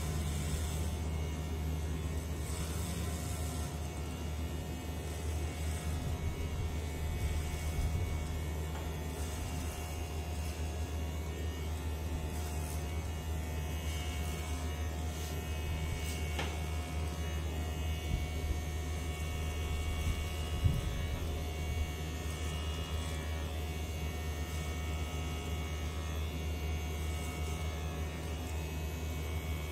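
Cordless electric hair clippers buzzing steadily as they cut through hair.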